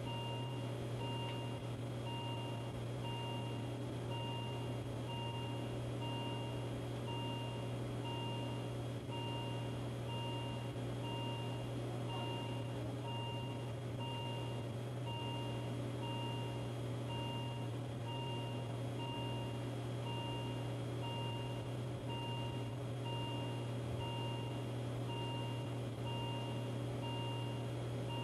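Simulated patient monitor beeping steadily, about once a second, over a constant low hum.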